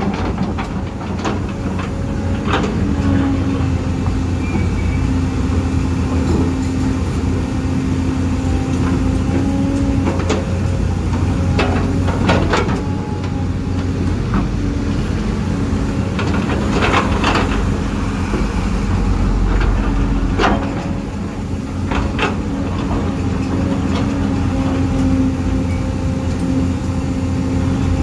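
Huina 1550 RC excavator's electric motors and gearboxes whining steadily over a low rumble, the pitch dipping and returning now and then, with scattered sharp clicks and knocks.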